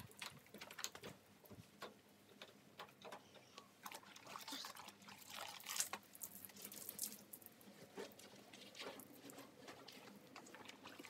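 Faint, irregular swishes and rubs of a wet cloth wiping down a soaked stainless steel barbecue, with wet patter.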